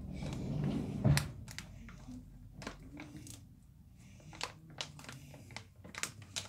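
Crinkly plastic packet crackling and rustling in the hands while it is tipped and squeezed to pour its contents into a plastic cup, with irregular sharp crinkles.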